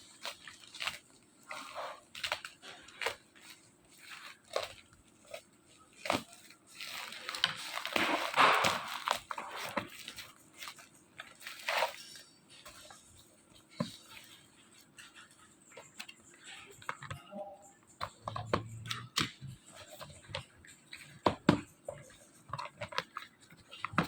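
Household items being handled: scattered clicks and knocks of containers and lids, with a louder stretch of rustling noise about seven to ten seconds in.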